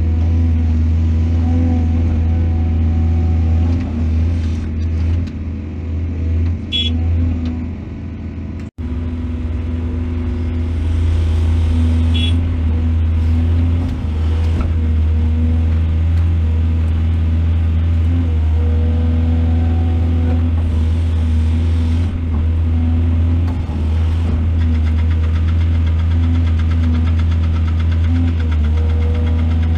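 Excavator's diesel engine running steadily, a deep even drone, cut off for an instant about nine seconds in.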